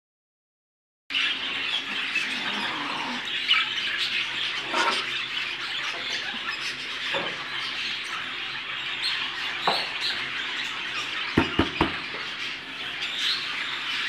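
Flock of budgerigars chattering and warbling, a dense continuous twitter with short squawks mixed in, starting after a second of silence. Three sharp knocks in quick succession near the end.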